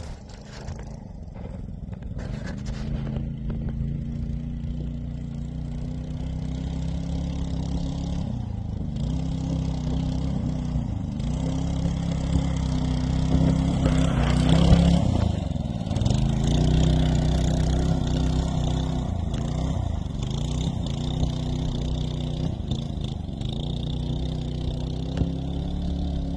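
FatCat mini bike's small four-stroke engine being ridden, its pitch rising under throttle and dropping off again every few seconds, loudest about halfway through.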